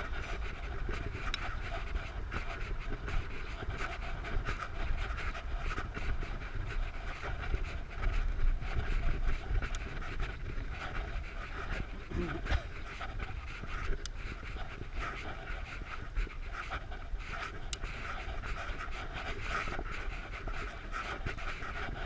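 A cyclist breathing hard while pedalling, over a steady rumble of wind on the microphone.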